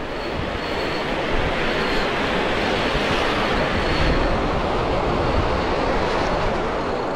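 Ocean surf washing in around the wader on a sandy beach: a continuous rush of breaking and receding water that swells in the first second or so and then holds steady.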